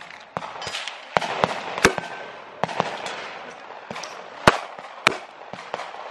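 Gunshots on a firing range: a dozen or so separate sharp cracks at uneven spacing, the loudest about four and a half seconds in.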